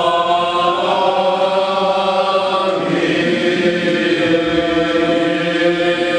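Male choir chanting an Orthodox liturgical hymn a cappella, holding long sustained chords, moving to a new chord about three seconds in.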